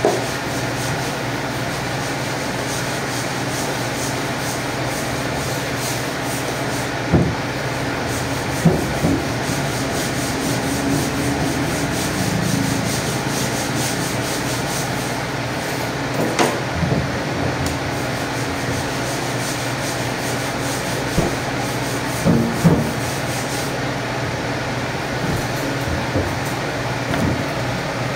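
Steady machine hum and hiss, with a few scattered short knocks and thuds from a knife and a pork side being cut and shifted on a metal table.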